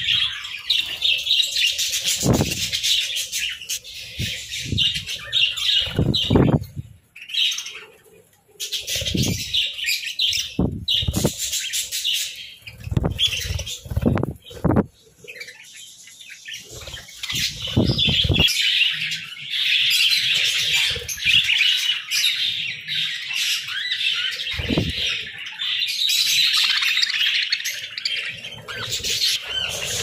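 Budgerigars chirping and warbling in a busy, high chatter, with short bursts of wing flapping scattered through it; the chatter thins briefly about seven seconds in.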